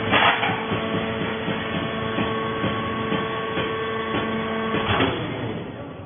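Hydraulic baler running, its pump motor giving a steady multi-tone hum, with sharp metal clanks of the chamber door and rods just after the start and about five seconds in. The hum stops soon after the second clank.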